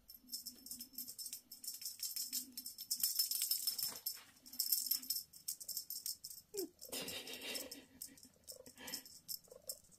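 A cat toy shaken above Devon Rex kittens, giving a high, rattling rustle in bursts that is loudest around the middle.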